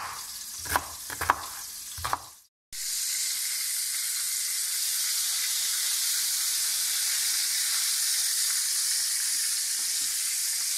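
A knife chopping onion on a wooden cutting board, four sharp strikes in the first two seconds. Then, after a short break, stuffed mushrooms coated in flour and egg frying in a pan of oil: a steady sizzle.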